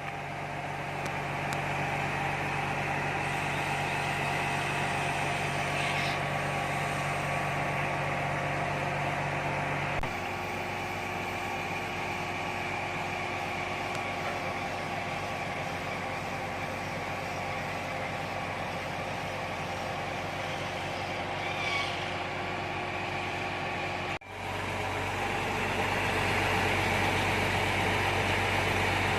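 Concrete pump truck's engine running steadily with a constant hum. The sound changes abruptly twice, about ten seconds in and again near the end, with a brief drop before the second change.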